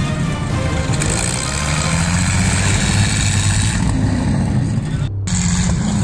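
Engine of a WWII military tank running on the move, with loud low engine tones and noise. The sound breaks off for a moment about five seconds in, then resumes.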